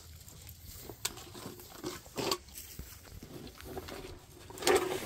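A person climbing up through a narrow rock crevice: scattered scuffs, scrapes and clicks of boots, hands and pack against rock and leaf litter. A louder burst of effortful, grunting breath comes near the end.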